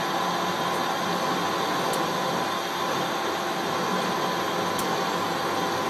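Large metalworking lathe running steadily while its tool faces a big metal disc: an even machine hiss with a steady whine and a couple of faint ticks.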